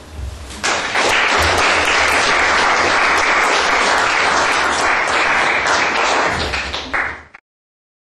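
Audience applauding, a dense round of clapping that starts about half a second in and cuts off abruptly near the end.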